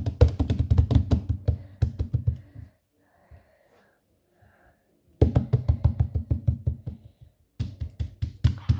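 Rapid drumroll of hands slapping a tabletop, about nine knocks a second, in three runs with a pause of a couple of seconds after the first.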